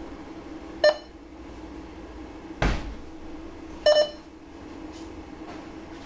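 Short electronic beeps from the Posiflex Jiva POS terminal as its touchscreen is tapped: one about a second in and a quick double beep near four seconds. A single dull thump falls between them, and a steady low hum runs underneath.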